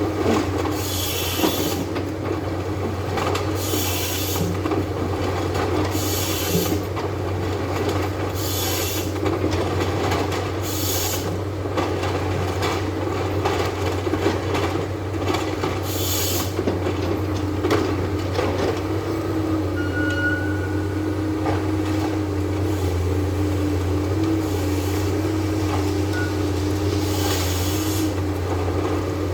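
Eucalyptus harvester running with a steady engine hum. Short bursts of hissing scraping come about seven times as its head cuts, debarks and sections the stems.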